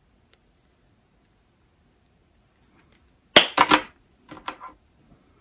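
Combination wire stripper/crimper snipping through the red lead of an inline fuse holder: a sharp cut about three and a half seconds in, followed by a few lighter clicks of the tool.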